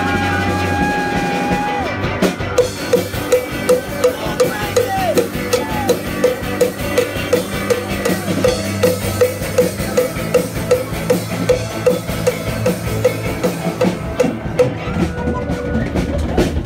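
Live punk rock band playing loud. A long held note in the first two seconds, then a steady beat on the drum kit about three times a second with a short repeated note over it, before the band swells again near the end.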